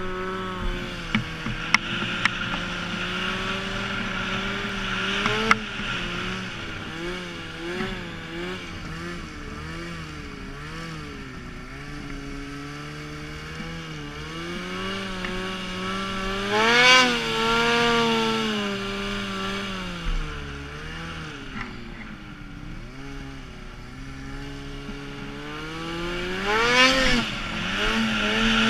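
Snowmobile engine running under the rider, its pitch rising and falling with the throttle as the sled works through deep snow, with two sharp revs about 17 and 27 seconds in. A few sharp clicks sound in the first few seconds.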